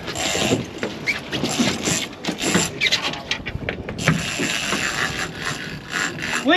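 Large conventional big-game fishing reel clicking and ratcheting in uneven spells while a hooked shark is fought on the line.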